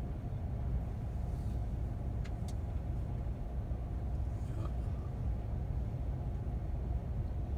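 Wind buffeting the microphone as a steady low rumble, over the even wash of small sea waves on the shore.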